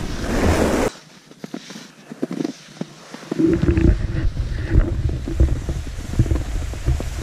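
Wind rushing and buffeting over an action camera's microphone while riding down a ski run behind a snowboarder, with low rumbling. The noise breaks off abruptly about a second in, stays quieter with scattered clicks, then comes back loud at about three and a half seconds.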